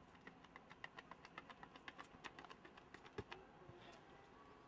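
Spiked running shoes striking a synthetic track in a long-jump run-up: a quick, even run of sharp footfalls, about four to five a second, ending about three seconds in with one heavier thud at the takeoff.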